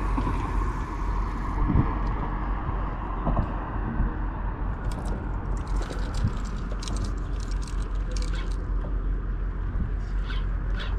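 Steady low outdoor rumble on the microphone, with a quick run of clicks about halfway through as a spinning reel is cranked, and one more click near the end.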